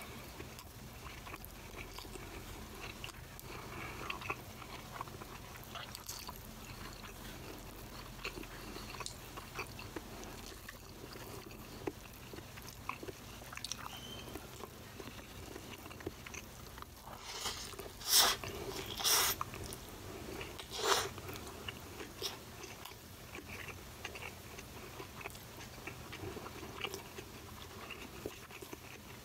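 Close-miked chewing and mouth noises of a person eating rice and vegetables by hand: many small moist clicks and crackles, with three louder, short noisy sounds a little past halfway.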